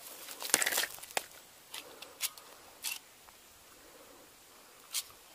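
A landed snakehead flopping and scraping on dry gravel as it is grabbed and unhooked with pliers: a burst of sharp scuffs about half a second in, then scattered single clicks and scrapes, the last near the end.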